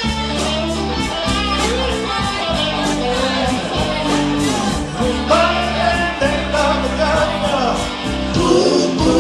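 Live rock band playing at full volume: electric guitar over bass and drums, with a steady beat and bending guitar lines from about halfway through.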